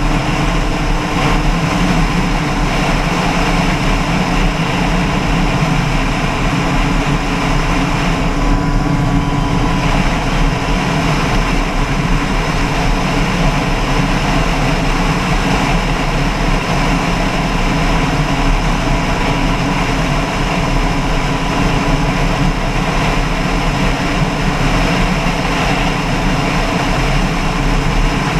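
Loud, steady engine noise that holds the same pitch and level throughout.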